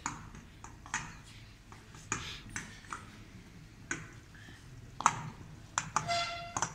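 Metal spoon tapping and clinking against a steel saucepan and a plate while stirring melting chocolate: irregular light taps every half second to a second, and near the end one short metallic ring of the pan.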